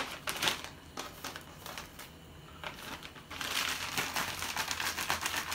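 Plastic zip-top bag crinkling and rustling as pieces of tilapia are shaken inside it to coat them in breading mix, quieter for a moment in the middle, then brisk shaking near the end.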